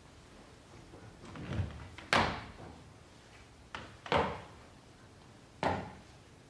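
Three loud knocks on a stage, about a second and a half apart, the first two each just after a softer knock. Each rings on briefly in the hall.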